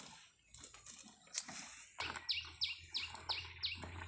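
A bird calling: short falling whistled notes repeated about three times a second, starting about halfway through. It is preceded by a couple of sharp knocks or rustles.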